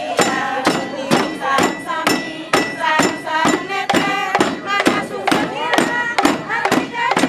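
Balinese tek-tekan procession music: a group of voices singing together over round frame drums struck in a steady beat of about two strokes a second.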